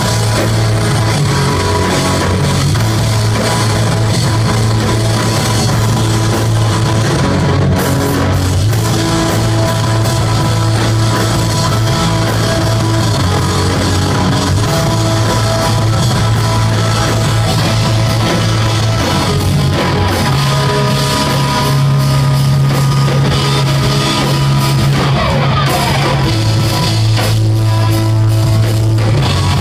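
Live rock band playing loud, with electric guitars, bass and a drum kit.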